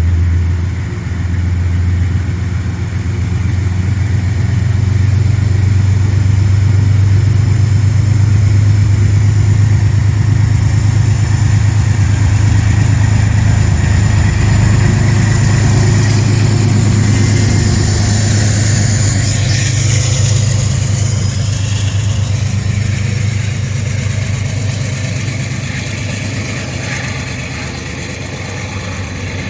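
Diesel locomotive pushing a Metro-North passenger train, its engine running loud and close as a steady low drone. The drone builds over the first few seconds, holds, then eases off toward the end, with a faint high whine in the middle.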